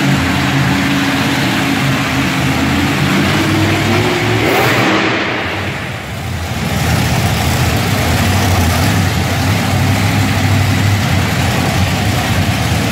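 Monster truck engines running in the arena, a deep steady rumble, with one engine revving up about four to five seconds in.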